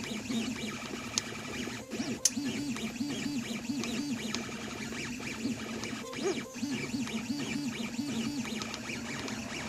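MakerFarm Prusa i3v 3D printer running, its stepper motors whining in repeated rising-and-falling tones about twice a second, with a few sharp clicks now and then. The printer has an odd creaking noise that the owner suspects comes from the extruder, where the filament has snapped below the hobbed bolt.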